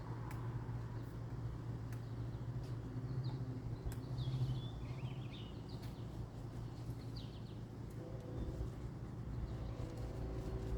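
A steady low hum, with a few short bird chirps about three to five seconds in and once more about seven seconds in.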